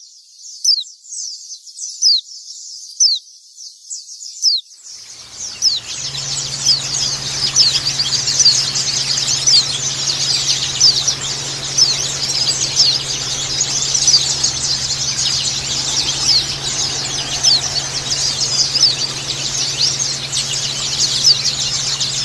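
High, down-slurred calls of a single white-eye, repeated about twice a second. About five seconds in, a dense chatter of many white-eyes calling at once takes over, over a steady low hum.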